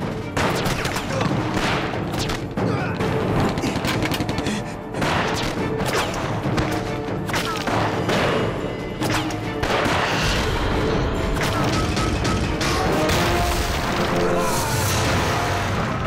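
Battle sound effects: repeated rifle shots and booming explosions throughout, layered over dramatic background music.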